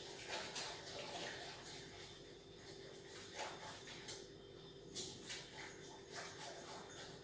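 Faint, irregular clicks and scrapes of someone handling things at a kitchen counter, over a steady hum.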